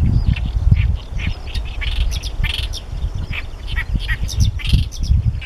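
A male great reed warbler singing its territorial song: a run of short, harsh, chattering notes repeated several times a second. Wind rumbles on the microphone underneath.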